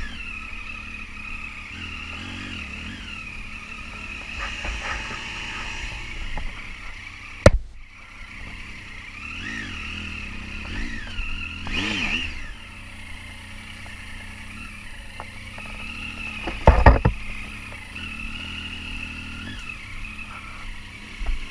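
Triumph Tiger 800 XC's three-cylinder engine running at low speed, its revs rising and falling with the throttle. Two sharp knocks, about seven seconds in and again around seventeen seconds in.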